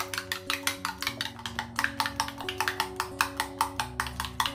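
Raw egg being beaten with a metal spoon in a glass bowl: rapid, even clinking of the spoon against the glass, about seven strokes a second, over background music.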